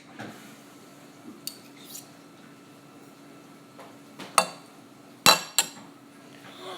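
A few separate clinks and knocks of kitchen utensils and dishes being handled, the loudest about five seconds in.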